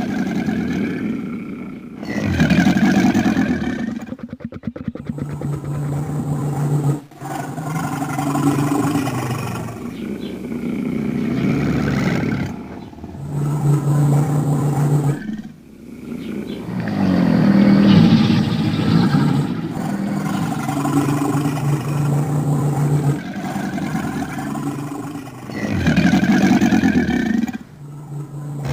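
Dragon sound effects mixed from recorded animal calls: a string of loud roars and growls, each a few seconds long, some with a steady low droning growl held underneath.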